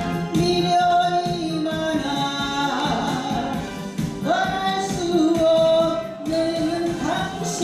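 A woman singing a Korean trot song over backing music, holding long notes that slide between pitches.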